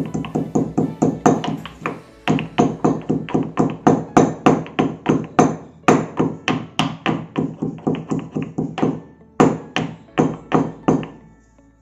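Stone pestle pounding peeled cardamom seeds in a stone mortar, crushing them to powder. The thuds come quickly and evenly, about four a second, with two short pauses.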